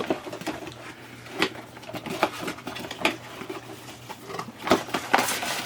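Gift packaging being torn open and handled: irregular crinkling, rustling and sharp clicks, busiest near the end, over a faint steady hum.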